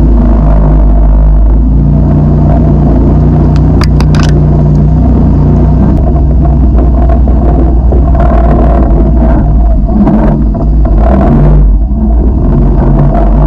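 Side-by-side UTV engine running loud and steady under load while driving through deep snow. A few sharp clicks about four seconds in and scattered knocks and brushing later on, from branches and snow striking the machine.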